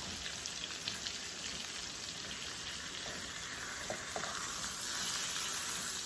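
Seasoned salmon fillets and shrimp frying in hot oil in a pan, a steady sizzle, with a few faint clicks about one second and four seconds in as the food is handled.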